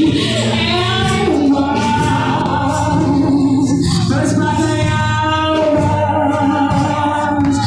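Gospel-style church singing with musical accompaniment, the voices holding long notes that change every second or so.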